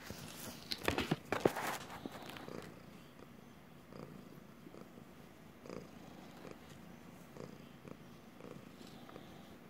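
Black-and-white domestic cat purring right at the microphone, the purr rising and falling in soft pulses about once a second. In the first two seconds there is a burst of louder rubbing and knocking against the phone.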